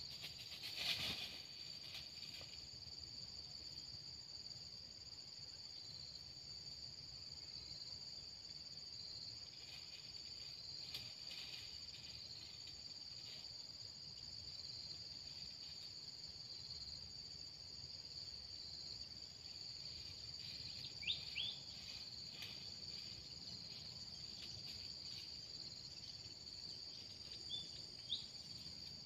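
Steady, faint high-pitched insect drone, crickets or cicadas, with a few brief faint chirps about 21 and 28 seconds in.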